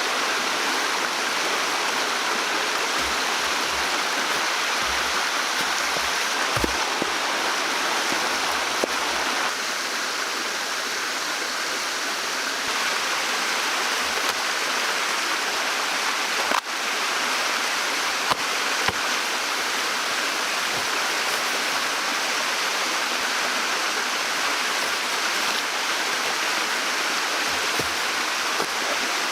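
Steady rushing of flowing water, like a stream, with a single sharp click just past halfway and a few fainter ticks.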